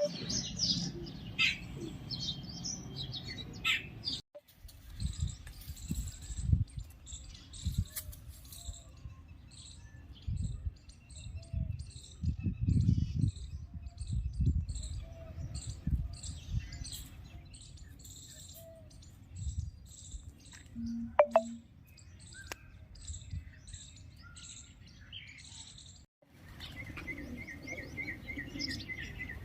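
Many small birds chirping and twittering in quick short calls over a low, uneven rumble. The sound cuts out for a moment about four seconds in and again near the end.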